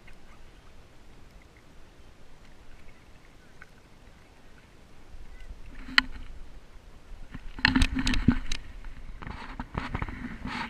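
Inflatable kayak being paddled: a faint wash of water and air, then a single sharp click about six seconds in, followed by a run of loud knocks and clatter from about seven and a half seconds on.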